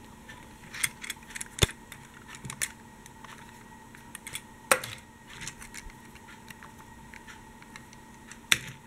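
Scattered clicks and knocks of a die-cast toy tram being handled, turned over and set down on a wooden table, with the sharpest knocks about one and a half and four and a half seconds in.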